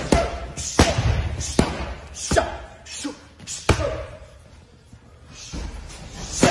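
Gloved strikes smacking into Thai pads: a quick string of sharp hits about one every 0.7 s, a short lull, then more hits near the end.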